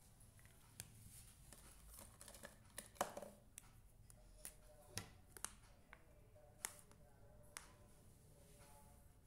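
Near silence: room tone broken by a dozen or so faint, scattered clicks and taps, the loudest about three seconds in.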